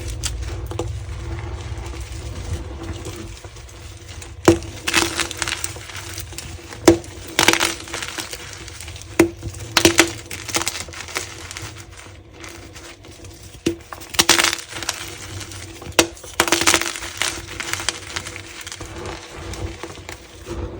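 Blocks of gym chalk being cracked and crushed: five sharp snaps, each followed by about a second of crumbling.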